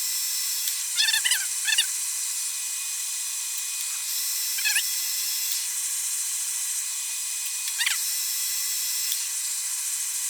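Wood lathe running steadily with a pen blank spinning as it is sanded with sandpaper, working through the finer grits. A few short squeaky chirps break in about a second in, near the middle and near the end.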